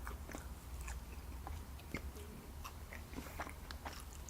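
A person chewing food close to the microphone, faint: a run of small, irregular mouth clicks and smacks over a low steady hum.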